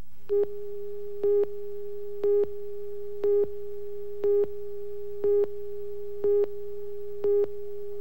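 Countdown beeps under a tape slate: a steady test tone with a louder beep once a second, eight beeps in all, over a faint low hum.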